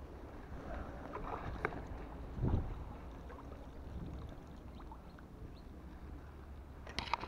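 Feeder rod and spinning reel being handled, over a low steady wind rumble on the microphone. A dull thump comes about two and a half seconds in, and a few sharp clicks near the end.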